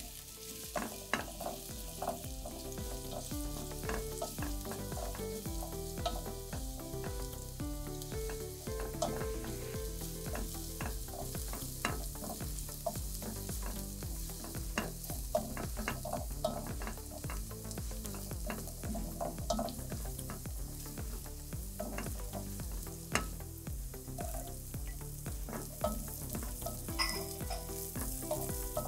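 Minced garlic, later joined by diced red onion, sizzling steadily in hot oil in a ceramic-coated pot, with a spoon stirring and scraping and knocking against the pot now and then in short clicks.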